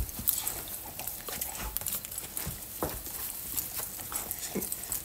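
A dog licking and snuffling at a person's face close to the microphone: many small wet clicks and rustles.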